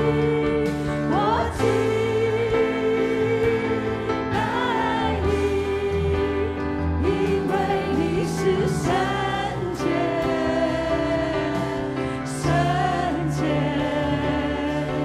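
A slow worship song in Chinese: a woman sings a held, wavering melody over sustained keyboard chords, with light drums and cymbals behind.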